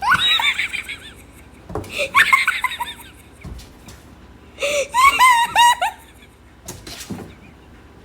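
Wheezing, high-pitched laughter in three bursts, with a couple of faint knocks near the end.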